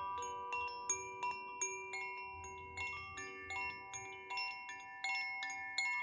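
Koshi wind chime ringing: its clapper strikes the tuned rods irregularly, about two or three times a second, each strike a light click followed by sweet, overlapping sustained tones.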